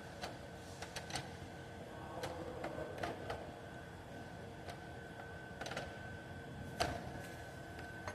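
Scattered light clicks and taps over a faint steady high hum, the sharpest tap about seven seconds in.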